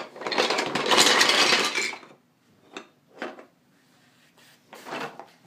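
A battery toy train set's dump car tipping its load: about two seconds of dense clattering of small hard pieces tumbling out, followed by a few single clicks.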